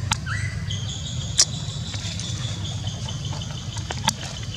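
A low, steady engine hum, with a thin, high, steady whine from about a second in until near the end, and a few sharp clicks, one louder than the rest.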